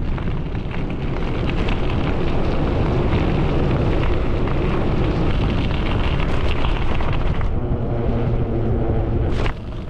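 Wind rushing over the GoPro microphone with bicycle tyre noise on the road, on a moving bike. Near the end the tyres hum steadily across a steel grate bridge deck, and the rush drops off suddenly just before the end.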